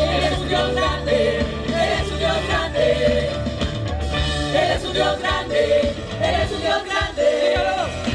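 Live Spanish-language worship music: a full band with bass and drums playing under sung vocal lines.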